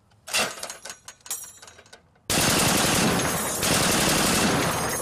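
A few scattered clicks and knocks, then about two seconds in a tripod-mounted heavy machine gun opens fire in a long burst, the shots so rapid they run together into one continuous sound.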